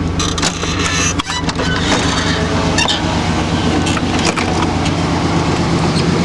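1992 GMC Z71 pickup's engine idling steadily, with a few sharp clicks and knocks as the truck's door is handled.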